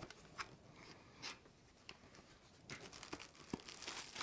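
Quiet handling of a small cardboard box: a few scattered taps and clicks, then, from just under three seconds in, a soft rustling and scraping as the box is opened.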